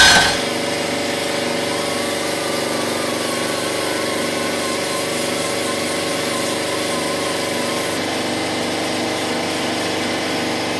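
Pneumatic die grinder with a Roloc abrasive disc running at a steady, even pitch while it is worked over welded steel square tubing to clean off cut burrs.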